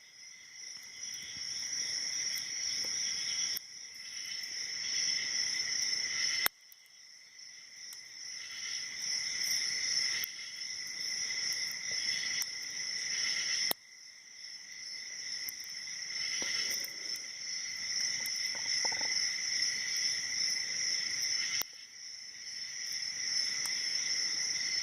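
Steady high-pitched chirring of insects, with a few sharp clicks. After each of the loudest clicks, about six and a half and fourteen seconds in, the chirring drops suddenly and then swells back.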